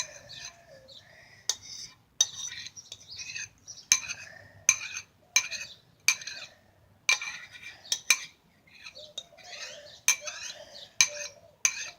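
A spoon scraping and knocking against a bowl with repeated irregular clinks, scraping out the last of a thick glue-and-water mixture.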